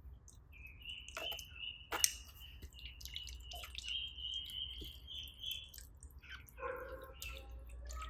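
Slime being squeezed and worked by hand: many small wet, sticky clicks and pops, with a sharp pop about two seconds in. A thin high steady tone holds through most of the first six seconds, and a lower pitched sound with several tones comes in near the end.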